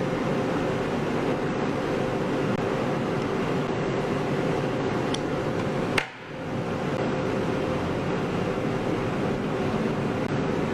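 Steady background hiss with a constant low hum, like an air conditioner or fan running. A single sharp click about six seconds in, after which the hiss briefly dips before returning.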